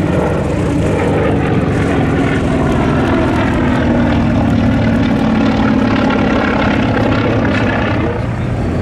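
Radial piston engine of a WWII US Navy propeller bomber running steadily, with a propeller drone. Its pitch rises slightly and eases back in the middle.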